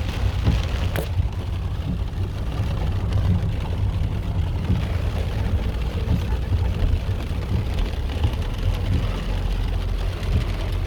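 Heavy rain pouring down, with a steady low rumble underneath and a single sharp click about a second in.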